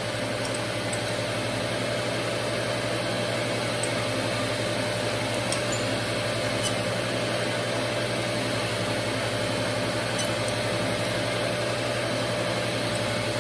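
Rockwell Delta surface grinder's spindle motor running at a steady pitch, a constant hum with a steady tone over it, its grinding wheel spinning free while it is fed down toward the diamond dresser for truing, not yet touching.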